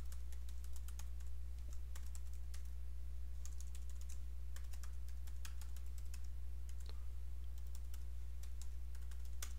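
Typing on a computer keyboard: irregular runs of key clicks, over a steady low hum.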